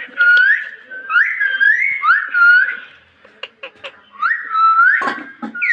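Pet parrot whistling a run of short swooping notes that rise and fall, with a few clicks in a pause about halfway and a short noisy burst near the end.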